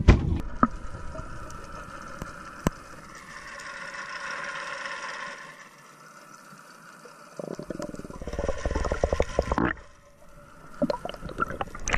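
Muffled underwater sound picked up by a camera in its waterproof housing: a low hiss with scattered sharp clicks, and a dense spell of crackling about eight seconds in.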